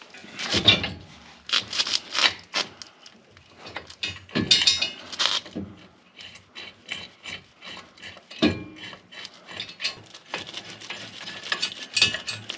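Irregular scrapes, rubs and clicks of metal mounting hardware and hand tools being handled while a snowplow mount plate is bolted in place, louder in clusters about half a second in and around four to five seconds in.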